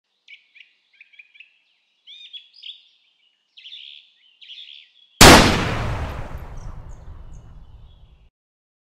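Small birds chirping in short calls, then about five seconds in a single loud rifle shot that echoes and fades away over some three seconds.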